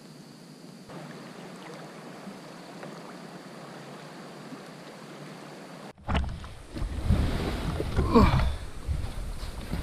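Water washing steadily around a kayak moving down the river. About six seconds in it cuts to much louder, rough, rumbling noise as a plastic kayak is hauled up onto a sandbar, with squeaky scraping around the middle of it.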